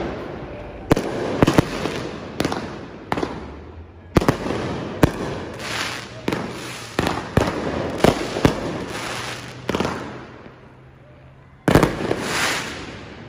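Consumer aerial fireworks bursting overhead: a dozen or more sharp bangs at irregular intervals, each trailing off in an echo off the surrounding buildings. A bigger, longer burst comes near the end.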